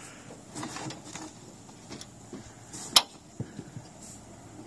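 Scattered clicks and knocks of hands working at a boat's outboard to free a rope tangled in it, with one sharp knock about three seconds in followed by a few lighter ticks.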